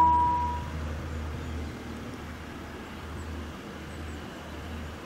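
German level-crossing warning bell: its last ring dies away within the first second, sounding while the red lights show for an approaching train. Then only a low steady rumble remains.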